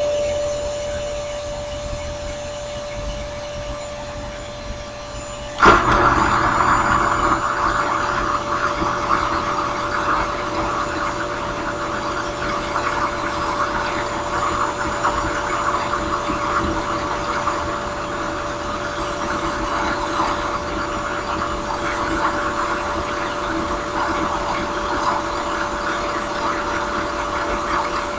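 Drill press running with a steady hum, spinning a small sanding drum. About six seconds in, a wooden pipe bowl is pressed against the drum with a sharp knock, and a steady rasp of sanding follows.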